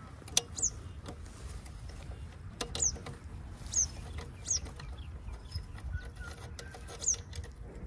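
Small clicks and scrapes from hands and an Allen key working the nut that holds a motorcycle exhaust's dB killer, with a bird chirping several times, short falling chirps.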